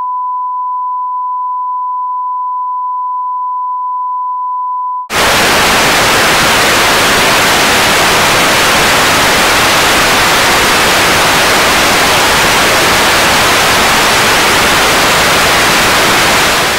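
A steady broadcast test tone, the reference beep that goes with television colour bars, cuts off about five seconds in. It gives way to loud, even hissing television static.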